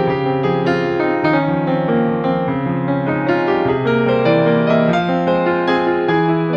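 Background music led by piano or electric piano, a gentle melody of notes over sustained low chords.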